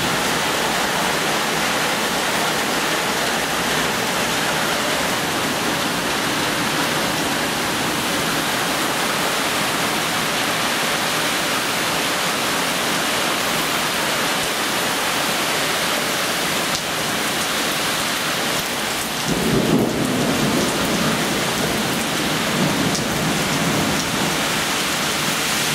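Heavy thunderstorm downpour, a steady hiss of rain. About three-quarters of the way through, a low rumble of thunder rolls in and carries on for several seconds.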